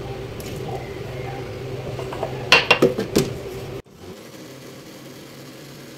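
Milk poured from a cup into a plastic blender jug, then a quick cluster of sharp clicks and knocks about two and a half seconds in as the cup and jug lid are handled. A low steady hum underneath cuts off suddenly about a second later.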